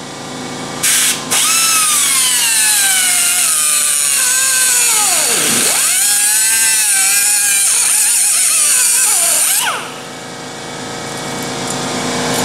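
Pneumatic cut-off wheel cutting through the steel cage of a differential side bearing: a brief blip about a second in, then a long high whine with grinding that sags in pitch as the disc bites into the metal, dips sharply near the middle and climbs back as the load eases, before the tool stops and winds down near the end.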